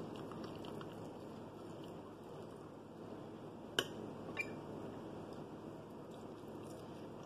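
Quiet chewing of fries over a steady low background hiss; about four seconds in, a metal fork clicks sharply twice against a glass plate as fries are picked up.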